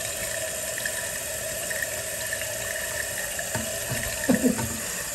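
Toilet tank refilling through a newly installed fill valve: a steady hiss of running water with a steady tone in it, as the float rises toward shut-off.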